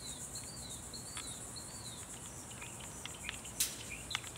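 Steady, high-pitched chorus of insects, with a bird repeating a short falling note about every half second for the first two seconds, and a few sharp clicks near the end.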